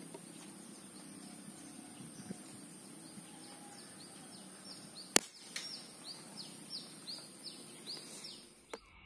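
A single PCP air rifle shot about five seconds in, a sharp crack. It is followed by a run of quick high chirps, about four a second, over faint outdoor background.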